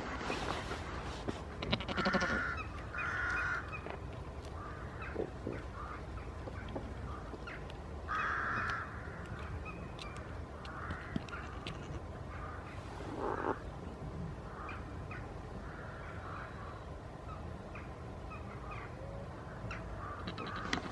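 Farm animal calls: a few short calls about two seconds in, again around three and eight seconds, and once more around thirteen seconds, with small chirps between them over a steady low rumble.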